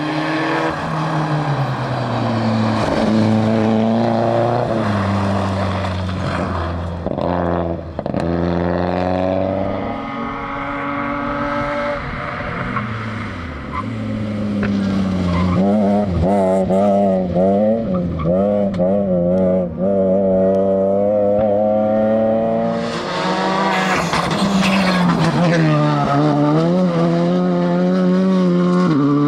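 Rally car engines revving hard, pitch climbing and dropping again and again through gear changes as the cars drive the stage. From about 16 to 20 s in, the revs waver rapidly up and down.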